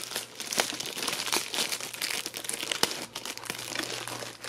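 Clear plastic wrap crinkling and crackling as it is handled and worked loose from a newly unboxed audio interface, with many sharp little crackles throughout.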